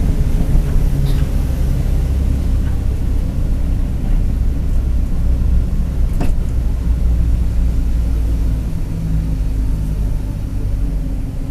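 Mercedes-Benz OF-1721 BlueTec 5 city bus running, a steady low drone of engine and drivetrain with the differential growling. A single sharp knock about six seconds in.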